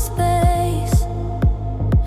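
Electronic dance music instrumental passage: a steady kick drum about twice a second under a sustained synth melody, with the highs briefly cut away past the middle.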